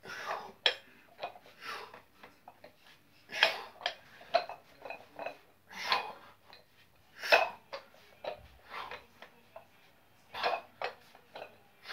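Iron plates on adjustable dumbbells clinking and rattling during repeated curls, with a short burst of breath every second or two.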